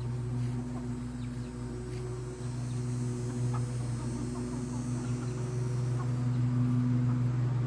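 Silkie chickens and their chicks clucking and peeping softly over a steady low hum.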